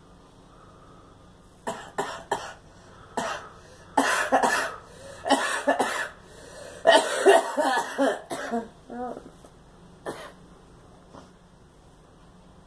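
A girl coughing repeatedly: a few single coughs about two seconds in, then longer runs of coughs between about four and eight seconds, and a couple of isolated coughs near the end.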